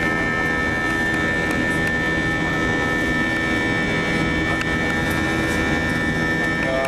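Cabin noise of an Airbus A321 in flight: steady jet engine and airflow noise with a few steady high-pitched tones.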